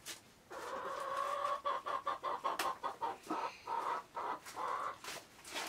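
A domestic chicken clucking in a long, drawn-out wavering call, with a scatter of short sharp clicks and knocks over it.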